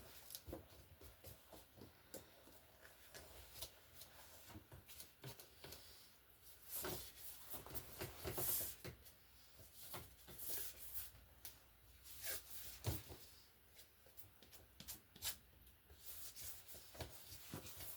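Faint scattered clicks and rustles of hands handling a canvas and paint while a base coat of house paint is spread, with a few louder taps about seven, eight and a half and thirteen seconds in.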